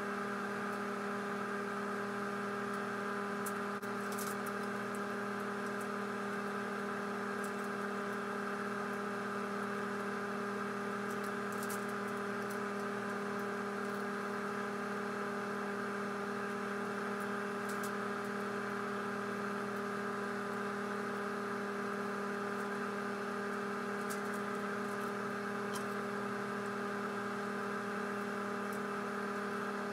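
Steady whirring hum of a kitchen appliance's fan motor, unchanging throughout, with a few faint light ticks now and then.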